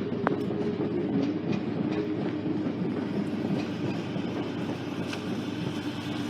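Train passing close by: a loud, steady low drone with a wavering hum and a few faint clicks.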